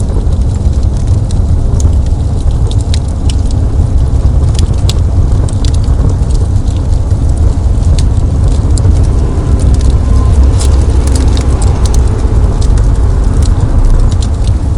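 Wood fire burning in a fireplace: a steady low rumble of flames with many scattered sharp crackles and pops.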